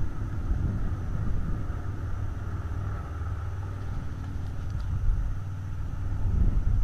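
Wind rumbling on an outdoor camera microphone: a steady low rumble that rises and falls a little.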